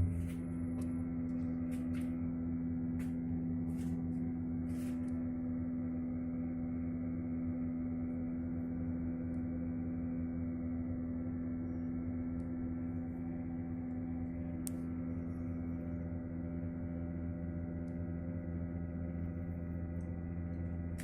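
Boiler's circulation pump humming with a steady low drone made of several fixed tones. The owner reports that this hum comes on and stops by itself after a while, every time.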